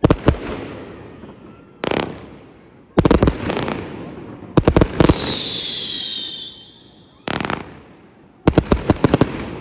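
Fireworks going off: single bangs and quick volleys of cracks every second or two, with a high whistle that falls slightly in pitch about five seconds in.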